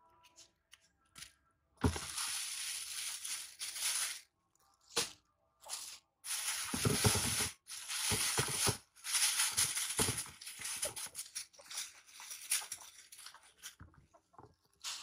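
A thin plastic bag crinkling and rustling as it is handled, in several long spells with short gaps between them.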